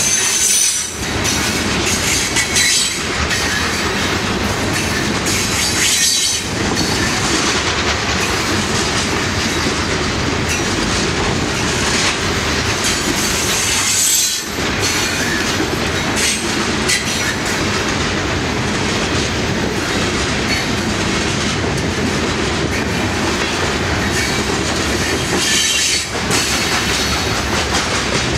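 Loaded coal train's hopper cars rolling past close by: a loud, steady clatter of steel wheels over the rails, with brief high-pitched wheel squeal now and then.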